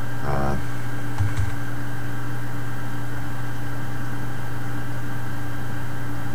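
A steady low hum throughout, with a short voiced sound just after the start and a few faint computer keyboard keystrokes about a second in.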